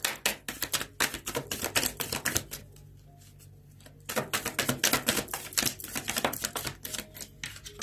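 A tarot deck being shuffled by hand: two runs of quick, dense card clicks, with a pause of about a second and a half around three seconds in.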